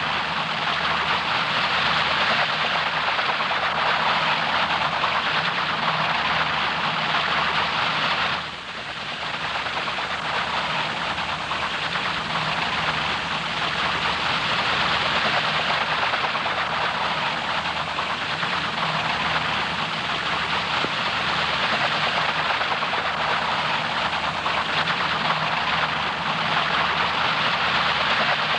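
Fairey Rotodyne compound helicopter hovering with a slung load: a steady roar with a slow, regular low throb underneath. The sound dips briefly about eight seconds in, then carries on.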